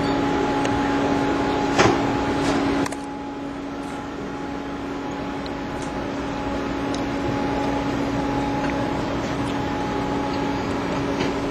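Steady mechanical hum with a constant low tone, with a sharp click a little under two seconds in and an abrupt drop in loudness about a second later.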